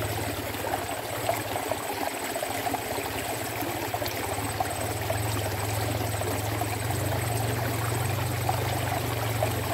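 Water trickling steadily in a small ditch, with a steady low hum underneath.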